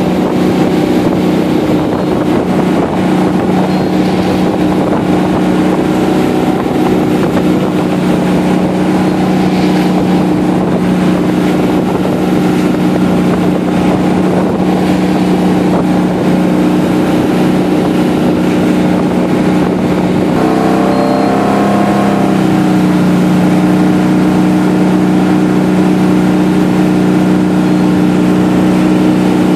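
Tow boat's engine running steadily at towing speed, pulling a water skier, over a constant rush of water. About twenty seconds in, the engine note wavers up and down briefly, then settles back to its steady pitch.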